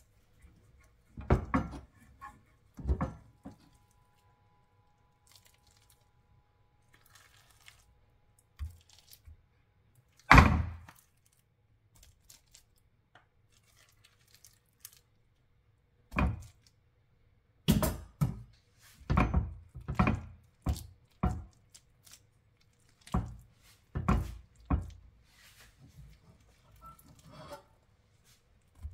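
Spatula knocking and scraping as cooked glutinous rice is scooped from a pot and pressed into a ceramic dish: a series of dull thunks and knocks, the loudest about ten seconds in, with a quicker run of them in the second half.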